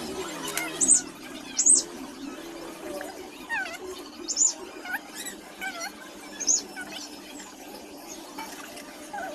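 Repeated short, high-pitched animal chirps and sweeping squeaks over a steady low hum.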